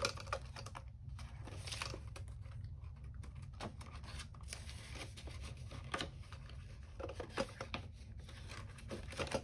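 Paper banknotes rustling and a clear plastic binder pouch crinkling as cash is handled and tucked into the pouch, with scattered light clicks and taps.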